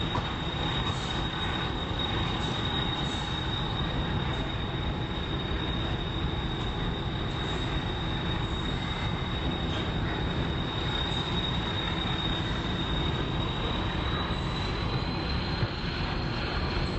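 Passenger train running along the track, heard from inside the carriage: a steady rumble of wheels on rails with a constant high-pitched whine that rises slightly near the end.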